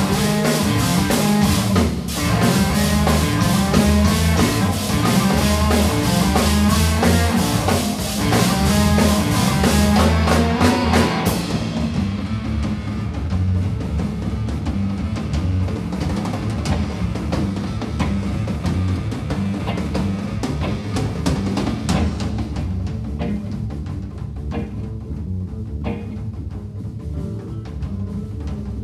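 Live band playing: drum kit with steady cymbal strokes over bass guitar and guitar. About eleven seconds in the cymbals drop away and the band plays on more quietly.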